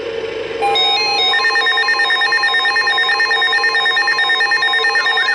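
Emergency alert tones: a loud electronic alarm of several steady pitched tones that comes in about half a second in, stepping between pitches at first, then held with a rapid flutter. Near the end a siren-like rising-and-falling sweep joins them.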